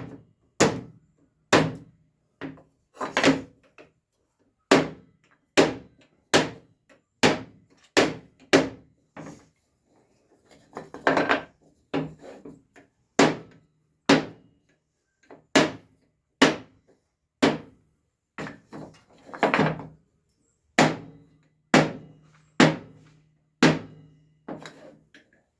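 Hammer blows on a screw set against a wooden picture frame, about one or two sharp knocks a second at an uneven pace, denting the wood to give it a distressed look.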